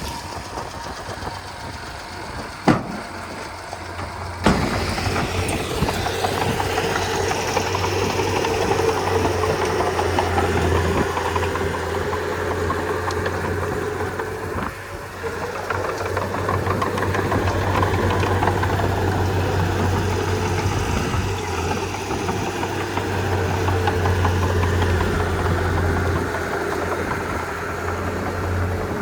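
Komatsu D31P bulldozer's diesel engine running steadily, with two sharp knocks in the first few seconds. From the second knock on the engine runs louder with a steady low hum.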